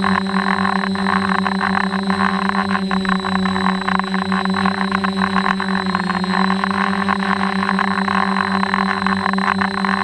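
DJI Flamewheel F550 hexacopter's brushless motors and propellers running steadily in flight, heard from a camera on the frame: a steady hum with a thin high whine over a rush of prop wash and wind. The pitch wavers briefly about six seconds in as the motors change speed.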